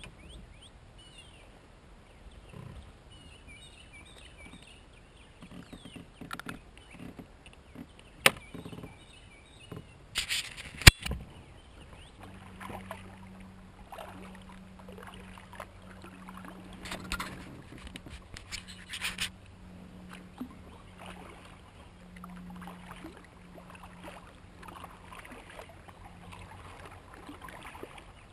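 Kayak being moved along a creek: scattered knocks, clicks and scrapes against the plastic hull and gear, the sharpest a few seconds apart about a third of the way in. A faint steady low hum runs through the second half.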